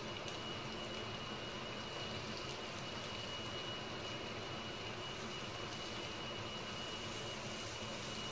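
Smoked tofu slices sizzling steadily in hot oil in a frying pan, with a few faint spatula taps as they are turned. A thin steady high tone runs underneath.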